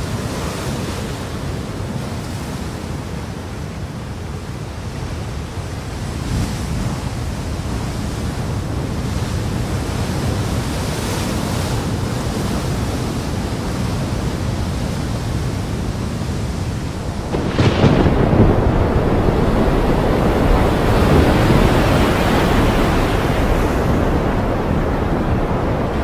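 Surf breaking and washing over a rocky shore, a steady rush of sea noise. About 17 seconds in it changes suddenly to a louder, rougher roar of heavy seas and wind.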